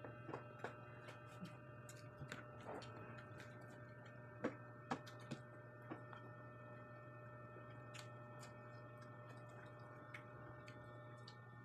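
Quiet eating sounds: scattered light clicks and taps of fingers and a spoon against plates and bowls, strongest around the middle. Underneath runs a steady low hum with several faint high tones.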